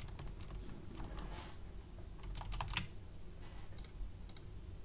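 A handful of separate, irregularly spaced keystrokes on a computer keyboard, fairly faint.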